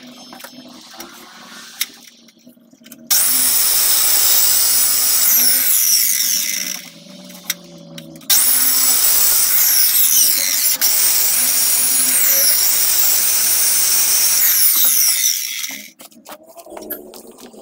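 Electric power tool cutting into a concrete block wall, raising dust. It starts about three seconds in, stops briefly near seven seconds, then runs again until near the end, with a high whine that shifts in pitch as it bites into the block.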